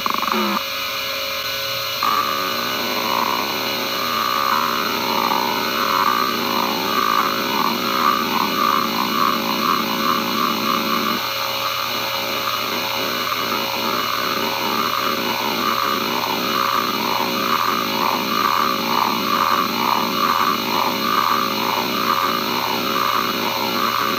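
Western Digital Caviar 22500 3.5-inch hard drive with its Nidec spindle motor whining steadily at 5200 rpm while the heads seek with a fast, buzzing chatter. About eleven seconds in the chatter turns into an even, rapid back-and-forth rhythm as a seek-test program drives the heads.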